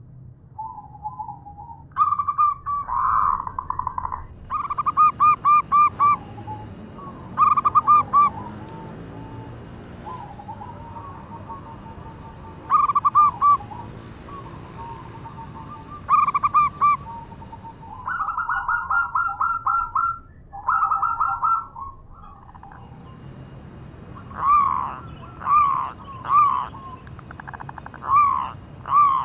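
Female zebra dove (perkutut) calling for a male: a series of short, rapid trilled coo phrases with pauses between them. Near the end these give way to separate single rising-and-falling notes, about one a second.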